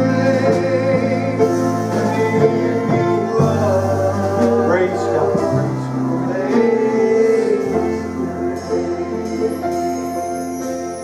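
Slow gospel-style worship music: sustained keyboard chords over held bass notes that change every couple of seconds, with a voice singing over them.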